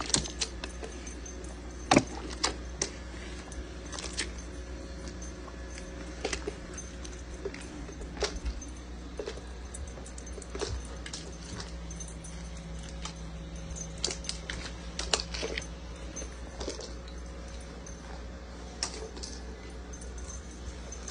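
A dog eating from a plastic slow-feeder bowl: irregular clicks and clinks, the sharpest about two seconds in, over a steady low hum.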